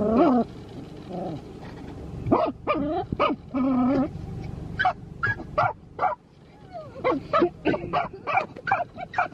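Small white dog yipping and whining excitedly at the moving windshield wipers, with a few drawn-out calls and then a quick run of short sharp yips and barks from about halfway.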